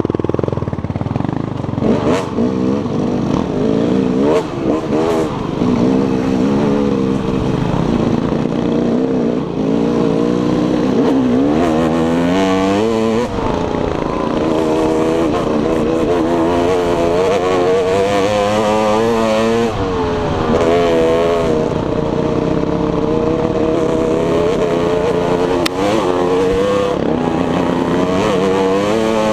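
Dirt bike engine heard on board while riding a trail, its pitch rising and falling constantly as the throttle opens and closes, with hard revs climbing about twelve seconds in and again near twenty. A few sharp knocks cut through.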